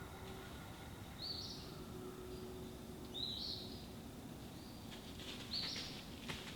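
A songbird calling three times, a short high note that steps upward, repeated about every two seconds, with a few faint ticks near the end.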